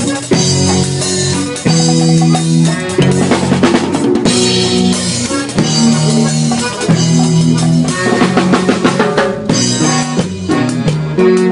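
Norteño band playing live: a drum kit with snare, bass drum and cymbals keeps a steady beat under a button accordion, guitar and held bass notes.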